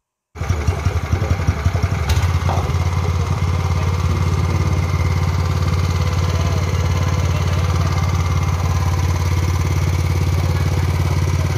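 Brand-new Honda GX270 single-cylinder four-stroke petrol engine running: the sound comes in abruptly about half a second in, runs unevenly for the first couple of seconds, then settles into a steady, even run.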